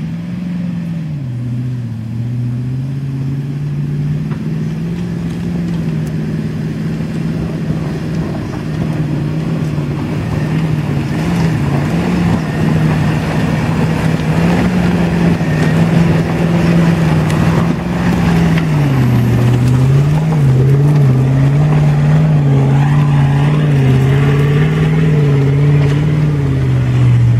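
Hummer H2's V8 engine working hard under load as the truck powers up a slippery mud hill. Its pitch wanders up and down with the throttle, dropping noticeably about two-thirds of the way through, and the engine grows louder over the first half as the truck comes nearer.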